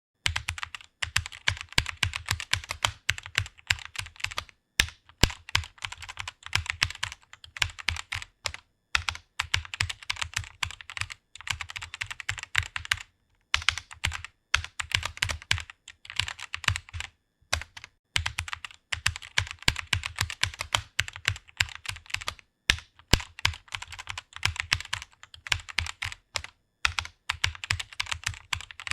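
Fast typing on a computer keyboard: a rapid, continuous run of key clicks with brief pauses every few seconds.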